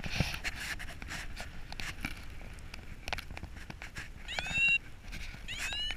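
Paragliding variometer beeping in two rising chirps a little over a second apart near the end: the climb tone that signals lift. Underneath is steady wind rush with small buffeting clicks on the microphone.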